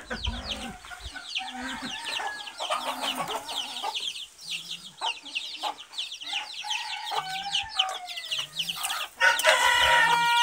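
Chickens clucking in low short calls over fast, high chirping. About nine seconds in, a rooster crows loudly, and the crow is still going, falling in pitch, at the end.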